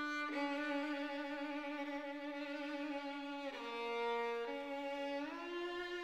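Background music: a violin playing a slow melody in long held notes, stepping down for about a second in the middle and rising again near the end.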